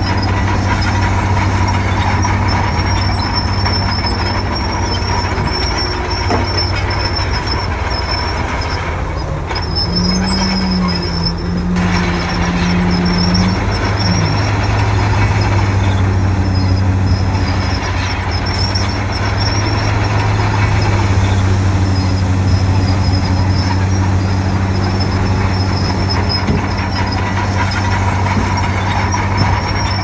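Komatsu D50P crawler bulldozer's diesel engine running steadily under working load, with a steady high whine over it. The engine pitch steps up about ten seconds in and settles back a few seconds later.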